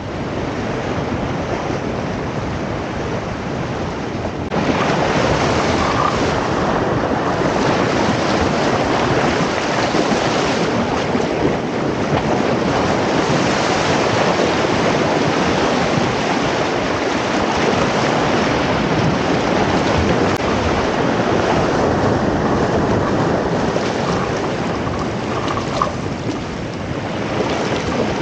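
Ocean surf washing and breaking over a rocky shore, a steady rush of foaming water that grows louder about four seconds in.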